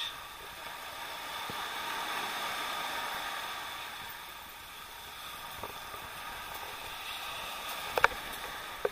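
Small waves breaking and washing up a sandy beach, a steady hiss that swells and ebbs. A couple of sharp clicks near the end.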